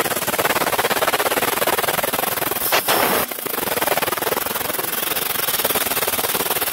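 Fiber laser cutting machine cutting sheet metal: a steady, dense hiss of the assist-gas jet with fast crackling from the molten metal blown out as sparks under the sheet, briefly louder about three seconds in.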